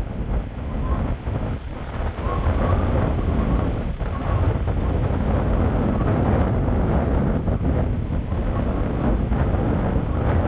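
Strong gusting wind buffeting the microphone as a heavy, wavering low rumble, with surf breaking on the rocky shore beneath it.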